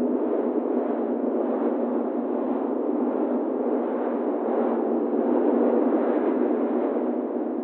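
Wind swirl sound effect: a steady rush of wind noise that rises and falls slightly, easing off near the end.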